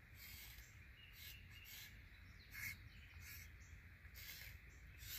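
Near silence: a faint low background rumble with a few soft, brief scratchy sounds scattered through it.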